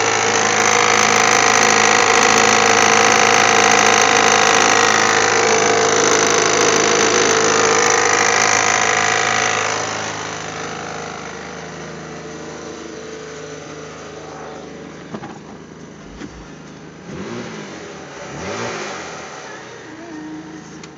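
Mitsubishi 3000GT VR-4's twin-turbo V6 running, loud and steady for about ten seconds, then dropping to a much quieter run, with two brief blips of revs near the end.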